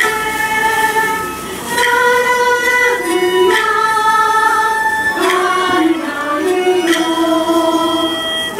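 Minshingaku (Ming-Qing style) ensemble music: a slow melody in long held notes with female singing, accompanied by moon lutes and flutes, with a sharp struck accent roughly every one and a half to two seconds.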